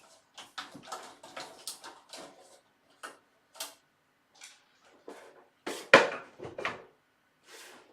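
Small clicks, scrapes and knocks of a screwdriver and metal parts being handled inside a desktop PC case while a case fan is unscrewed and taken out, with one louder knock about six seconds in.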